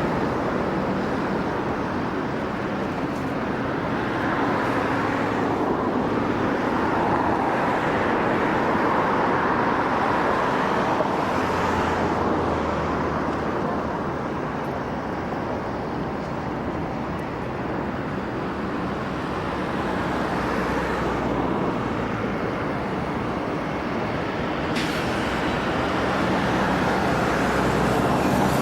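Steady motor and traffic noise that swells and eases gently, with no single engine standing out.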